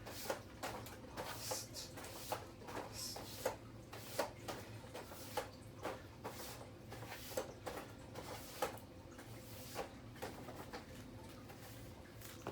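Irregular light clicks and taps, about one or two a second, of small objects being handled, with a low steady hum underneath.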